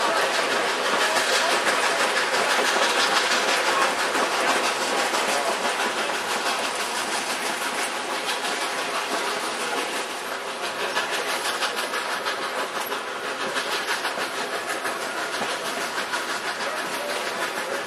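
Train ride heard from an open-sided coach behind Canadian Pacific 2-8-0 steam locomotive No. 3716 climbing a grade: a steady rolling and rattling of the coach wheels on the track, with the locomotive working ahead.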